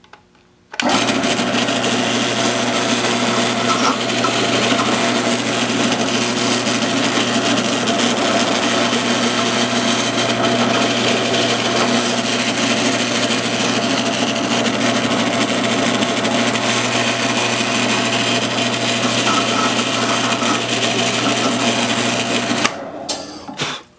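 Drill press running steadily with a Forstner bit boring shallow counterbores into a wooden board. The motor switches on about a second in and off near the end.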